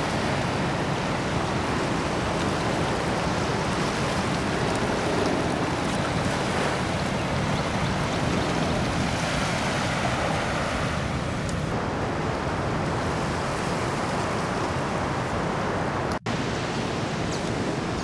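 Ocean surf breaking and washing over a rocky reef shoreline, a steady, continuous rush of waves. The sound drops out for an instant about sixteen seconds in.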